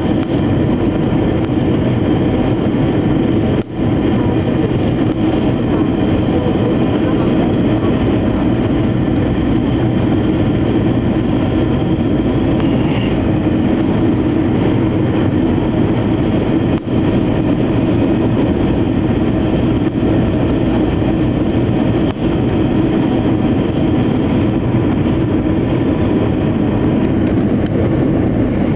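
Steady cabin noise inside an Airbus A321 descending on approach: engine and airflow noise, heaviest in the low and middle range, dipping briefly three times.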